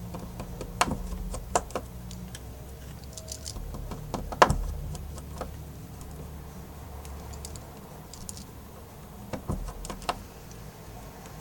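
Small sharp clicks and taps of hand tools and parts on a work table as an iPhone 6s is taken apart, with the loudest knock about four and a half seconds in and a few more near the end.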